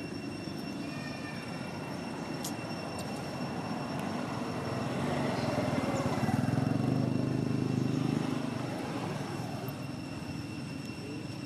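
Low rumble of a passing engine that swells over a few seconds in the middle and then fades, over a faint steady high-pitched whine.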